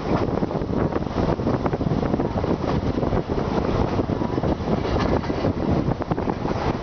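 Passenger train running along the track, heard from an open carriage window: wind buffeting the microphone over a steady rumble with many small knocks from the wheels and carriage.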